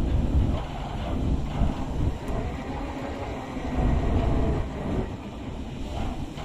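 Lifeboat launching: a loud, uneven low rumble with rattling, like a heavy hull running down a slipway.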